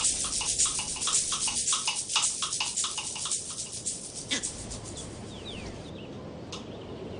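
Wildlife sound: a fast run of short, high-pitched animal call pulses, about five a second, dying away about four seconds in, followed by a few faint high chirps.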